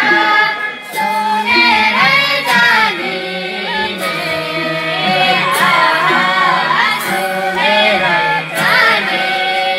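Women singing a Nepali folk song into a microphone, with harmonium accompaniment holding steady notes under the melody.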